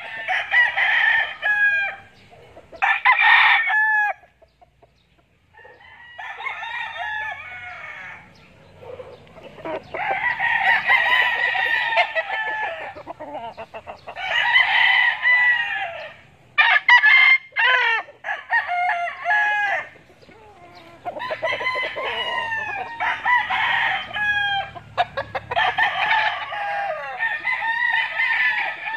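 Several gamecocks crowing, one long crow after another and at times overlapping, with a short pause about four seconds in.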